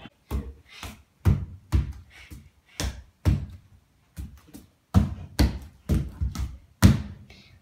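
Bare feet thumping and stamping on a hardwood floor as a child dances, irregular thuds about two or three a second.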